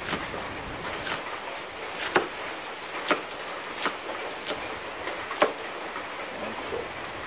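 Kitchen knife chopping cabbage on a small cutting board: sharp, uneven chops about once a second, the loudest about two seconds in and about five and a half seconds in, over a steady hiss.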